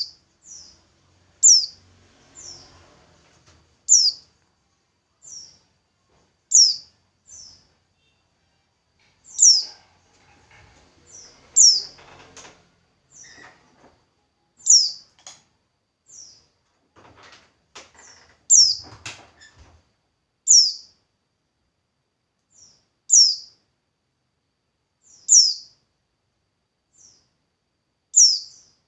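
A bird calling over and over: a sharp, high note that falls in pitch, followed by a fainter second note, repeating about every two and a half seconds. Faint rustles and clicks sound a few times in between.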